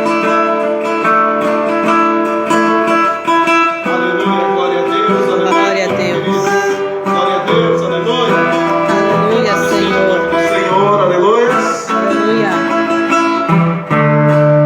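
Acoustic guitar playing an instrumental introduction to a worship song. Held chords at first, then busier picked passages from about four seconds in.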